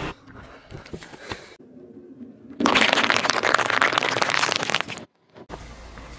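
Car tyre rolling over and crushing a row of cherry tomatoes: a loud, dense crackling and popping that starts abruptly about two and a half seconds in and cuts off about five seconds in. Before it, only faint scattered clicks.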